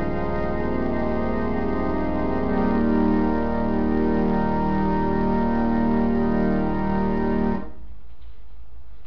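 Organ music: slow, sustained chords that change every second or two, which stop about seven and a half seconds in, leaving a low steady hum.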